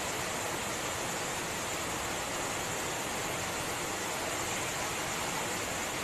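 Steady rush of a waterfall pouring into its plunge pool, an even hiss with no change.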